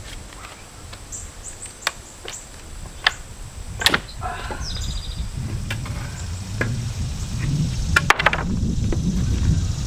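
Pallet boards being pried off the stringers with a pallet buster: scattered sharp knocks and cracks of wood and nails, with a tight cluster of them about eight seconds in. A low rumble builds through the second half.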